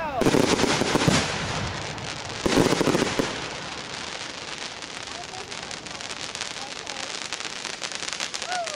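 Fireworks: a loud aerial shell burst at the start and another about two and a half seconds in, followed by a long run of dense crackling as glittering stars fall.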